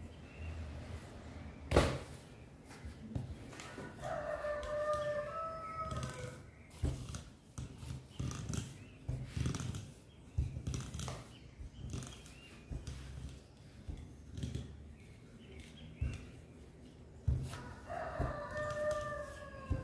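A rooster crows twice, about four seconds in and again near the end, each crow about two seconds long and dropping in pitch at its end. Between the crows come scattered knocks and taps from a wooden rolling pin working dough on the table, with one sharp knock about two seconds in.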